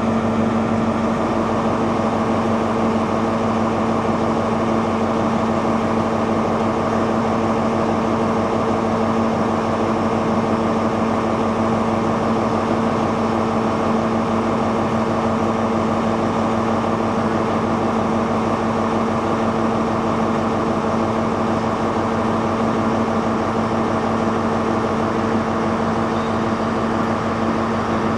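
Steady drone of an idling diesel train engine: a constant hum at an even pitch and level that does not rise or fall.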